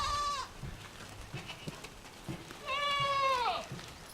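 Goats bleating: the end of one bleat at the start, then a longer bleat about two and a half seconds in that drops in pitch as it ends.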